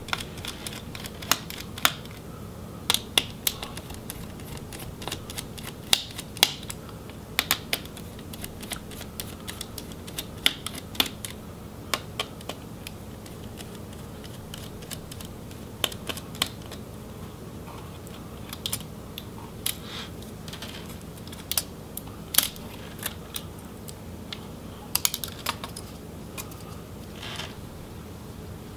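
Small Phillips screwdriver working the screws of a laptop's cooling fan and heat sink loose, with irregular light clicks and taps of the bit, screws and heat sink, over a faint steady hum.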